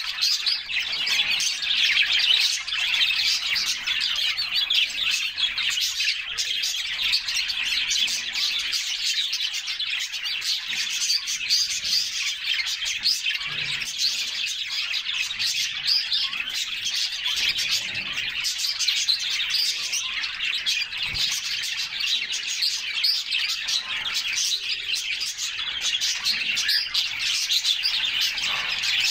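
A group of canaries chirping and singing continuously, many rapid high twitters overlapping at a steady level.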